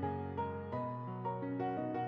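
Background music: soft piano-like keyboard notes in a slow, gentle melody.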